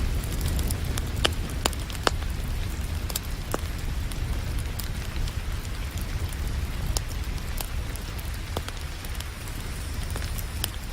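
Wood fire crackling, with sharp irregular pops and snaps, over a steady rain and a constant low rumble.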